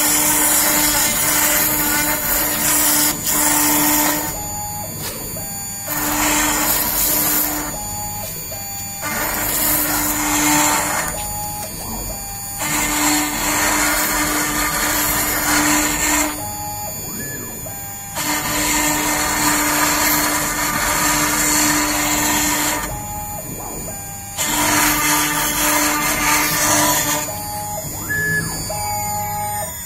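CNC wood router with a 3.2 kW water-cooled spindle milling. The cutting noise comes in stretches of two to five seconds with a steady hum, broken by short quieter gaps as the head moves between passes.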